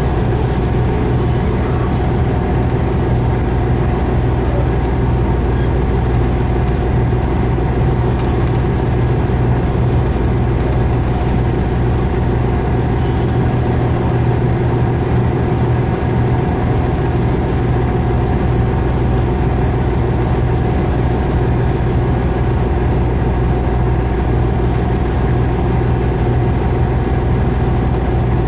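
Diesel railcar running with a steady engine drone and rail noise, holding an even low hum throughout. Faint brief high squeaks come a few times.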